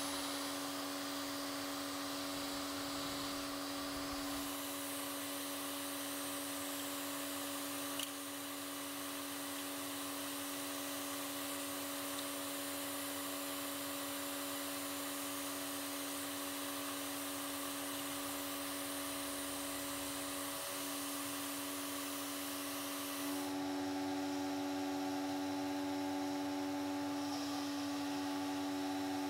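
Steady whine and hiss of small electric motors from a home-made vacuum-forming rig: a vacuum cleaner drawing a heated plastic sheet down over a lure, with a heat gun blowing. A single click about eight seconds in, and the pitch of the whine changes about 23 seconds in.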